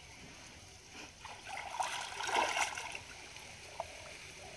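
Shallow muddy pond water sloshing and splashing as hands grope through it for fish, swelling for a second or so in the middle.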